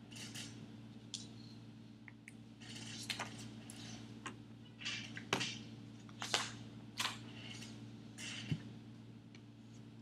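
Paper sheets rustling and being handled, with scattered small clicks and taps, over a steady low electrical hum.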